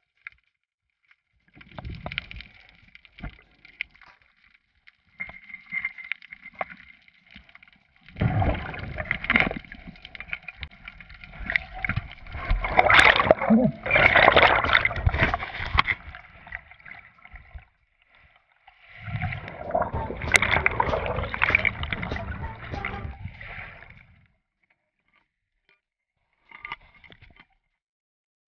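Water sloshing and bubbling, muffled through a GoPro's waterproof housing as a diver moves underwater. It comes in irregular bursts with silent gaps, the longest and loudest in the middle and a shorter one after it.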